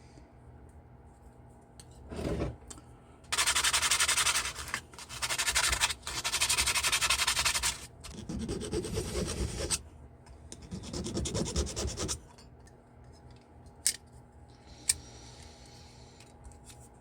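Abrasive scraping on silver sheet from shaping the bracelet parts: three harsh, hissy strokes of a second or two each, then two duller, lower scraping passes, and two sharp clicks near the end.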